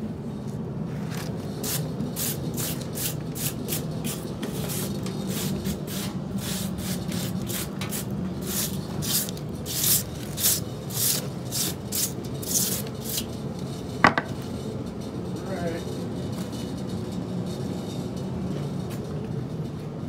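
Hand work on a snow-covered log at a homemade sawmill: a run of short scraping and knocking strokes, two or three a second, loudest about eight to thirteen seconds in, then one sharp metallic clink with a brief ring. A steady low hum runs underneath.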